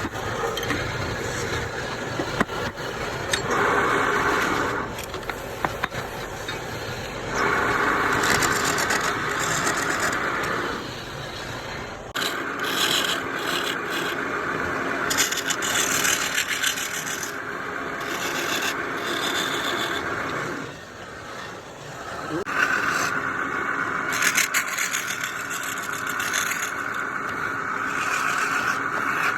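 Turning tool cutting into wood spinning on a lathe: a steady pitched scraping in several long passes of a few seconds each, easing off briefly between passes.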